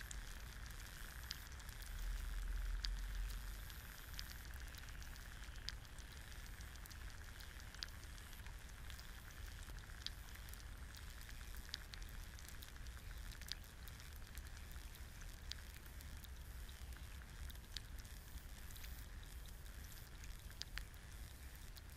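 Egg frying in a pan: a faint steady sizzle dotted with sharp pops and crackles as bubbles in the white burst. Underneath is a low rumble that swells about two to four seconds in.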